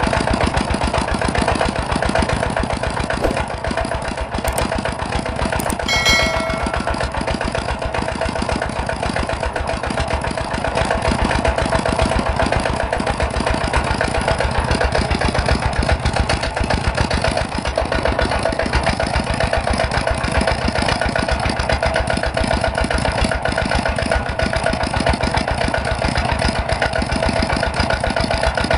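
Miniature rice-hulling machine running steadily, a fast rattle with a steady whine over it, as it is tried out with corn. About six seconds in comes a brief metallic ring.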